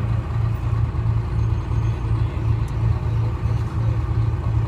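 Detroit Diesel 6V71 two-stroke diesel engine of a GMC New Look bus running steadily, a low drone with a regular pulsing beat.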